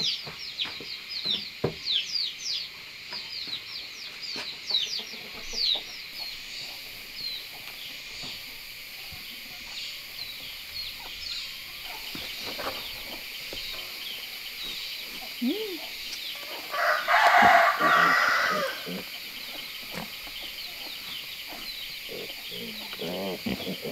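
A rooster crows once, loud and about a second and a half long, around seventeen seconds in. High bird chirps come quickly in the first few seconds, and a few low calls come near the end.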